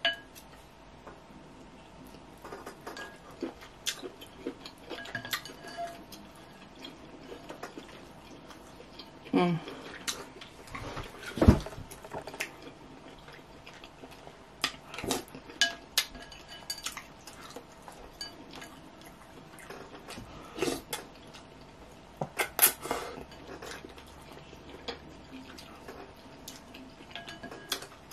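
Wooden spoon and plastic fork tapping and scraping against a glass bowl of ramen, in scattered short clicks, with a few louder knocks, along with close-up eating sounds.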